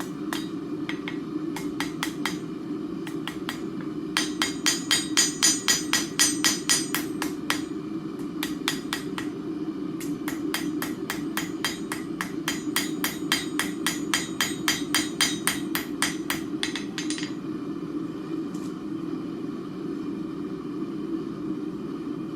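Light, rapid hand-hammer blows on hot steel over an anvil, about five or six ringing strikes a second, flattening the hinge end into a leaf shape; the hammering stops about three quarters of the way through. A steady low hum runs underneath.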